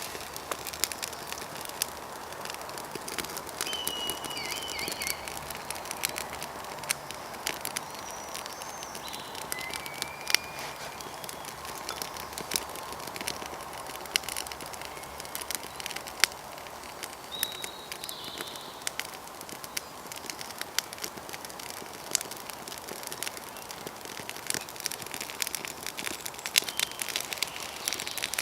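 Wood campfire crackling with frequent sharp, irregular pops as the kindling catches. A few short bird chirps come through now and then.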